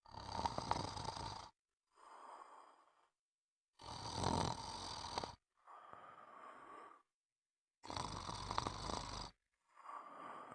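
Snoring: three loud snores about four seconds apart, each followed by a quieter breath, with short silences between the breaths.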